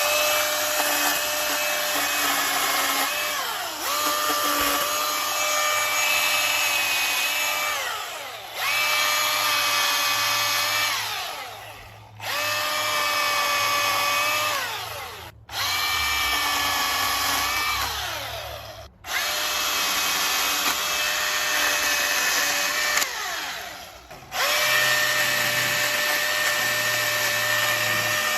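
Milwaukee M18 FUEL 16-inch cordless chainsaw running with a high motor whine, cutting wood in a series of runs. The pitch sags as the chain bites and climbs back as it frees. The trigger is let off briefly several times between cuts.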